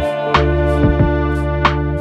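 Background music with a steady beat, sustained notes over regular drum hits.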